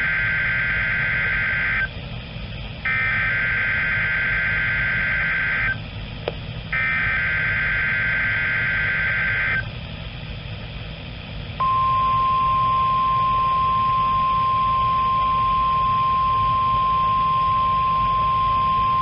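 NOAA Weather Radio emergency-alert test tones. First come three warbling bursts of the SAME digital data header, each about three seconds long, with radio hiss between them. Then, after a short gap, the steady 1050 Hz warning alarm tone starts and holds: this is the weekly test of the warning alarm system.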